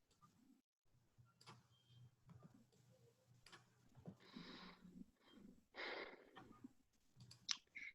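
Faint scattered clicks of a computer mouse at work, with two short breathy hisses about four and six seconds in, over near silence.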